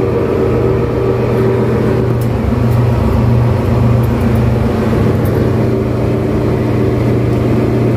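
Steady loud drone of ship engine-room machinery, a low hum with several held tones over it. A few faint light clicks sound in the middle.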